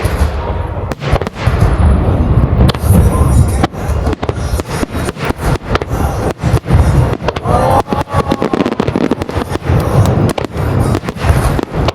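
Fireworks display: many aerial shells bursting in rapid succession, deep booms mixed with quick sharp cracks, the whole barrage dense and sustained.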